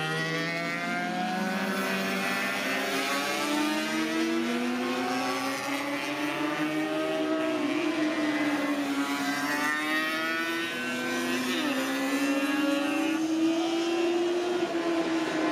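Several racing motorcycles running on a circuit, their engine notes rising and falling and overlapping as they lap and pass.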